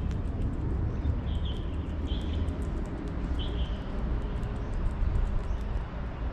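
A bird giving a few short high calls, about one, two and three and a half seconds in, over a steady low rumble and a rapid scatter of faint high ticks.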